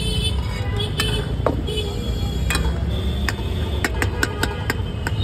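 Sharp metal clinks of a steel ladle knocking against an aluminium pan while Maggi noodles are stirred, coming quicker over the last couple of seconds, over a steady low rumble.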